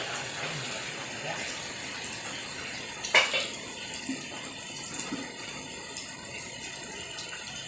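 Steady hiss of falling or running water, with one sharp knock about three seconds in.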